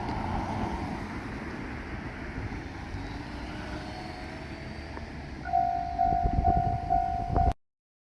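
JR Shikoku diesel train running past with a steady low rumble. About five and a half seconds in, a loud tone starts repeating in short pulses over heavy low thumps, and then the sound cuts off suddenly.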